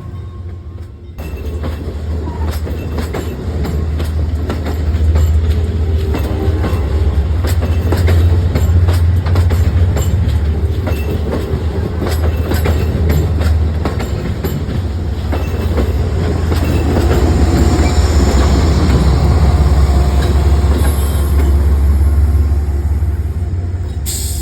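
Diesel locomotive hauling an Amtrak passenger train out of a station, its engine giving a steady deep rumble. The wheels click over rail joints, and the sound gets louder about five seconds in.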